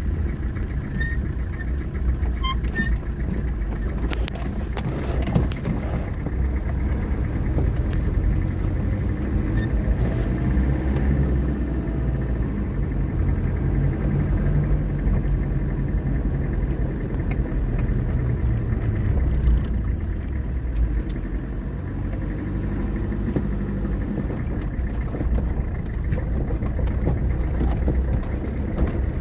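A car on the move: a steady low engine and road rumble that runs on without a break.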